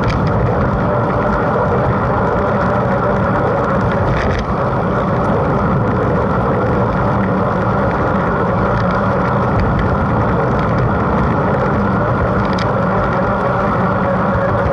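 Steady rushing noise of a mountain bike in motion, wind and tyre rolling noise on an onboard camera's microphone, with a couple of faint ticks.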